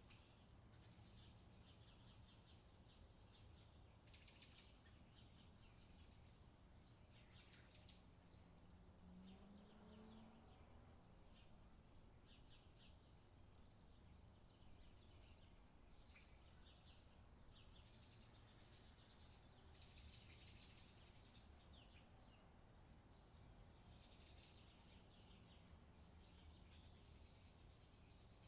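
Near silence: faint outdoor ambience with a low steady hum and scattered soft, high-pitched ticks, a few of them slightly louder.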